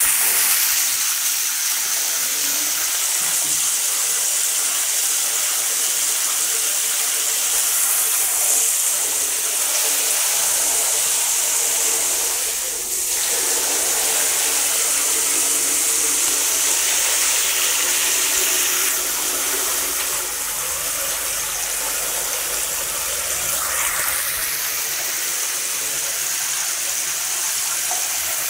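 Tap water running steadily from a bathroom mixer faucet and splashing into a washbasin partly filled with standing water.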